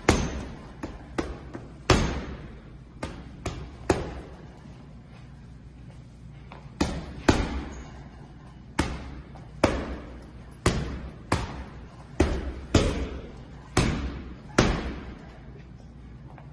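Bundles of banknotes being slapped down one after another, a sharp thump every half second to a second, with a pause of a few seconds partway through.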